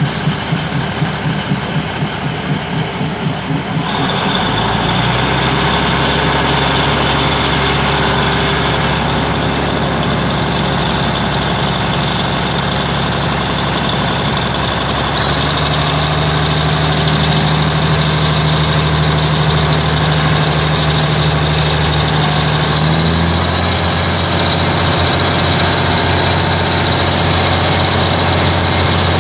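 A passing train's wheels clatter rhythmically over the rail joints for the first few seconds. Then a heavy diesel train engine takes over, running loud and steady under load as the train pulls away, and steps up in pitch about halfway through and again near the end.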